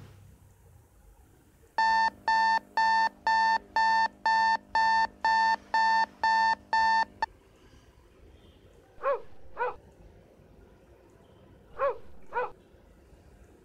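Electronic alarm clock beeping, about two beeps a second for some five seconds, then stopping. Later come two pairs of short high calls, each falling in pitch.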